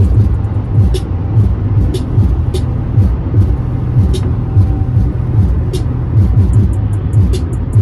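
Music with a heavy, steady bass line and a regular beat of low thumps and crisp high ticks about twice a second.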